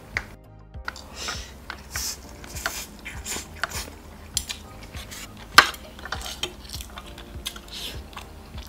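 Metal fork and spoon clinking and scraping against a soup bowl and a plastic takeaway container during a meal of noodles, in short, irregular strokes; one sharp clink about five and a half seconds in is the loudest.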